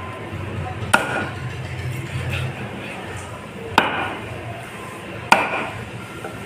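Three heavy chops of a cleaver through pieces of grey emperor fish onto a wooden block: about a second in, near four seconds, and just past five seconds. Each is a sharp whack with a brief ring, over a steady low background hum.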